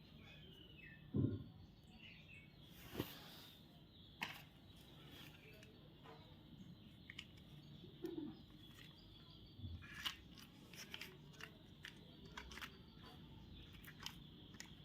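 Faint handling of candy packaging: scattered clicks and crinkles with a few soft thumps, the loudest a little over a second in.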